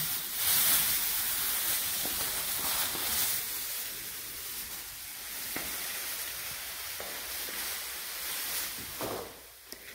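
Plastic sheeting crinkling and rustling against the phone as it pushes through a plastic dust curtain, loudest over the first three seconds, then a softer steady hiss of handling noise with a couple of faint ticks.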